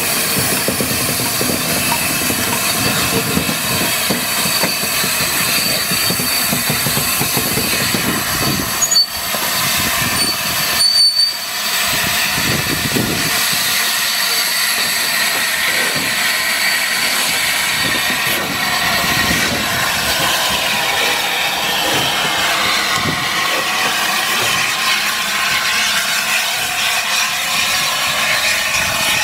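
LNER Class A4 steam locomotive moving slowly along the rails: a steady rush of running and wheel-on-rail noise, broken briefly about nine and eleven seconds in.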